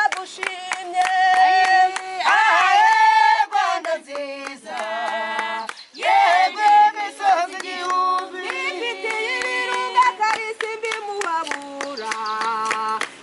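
A group singing a song together, with hand-clapping beating time.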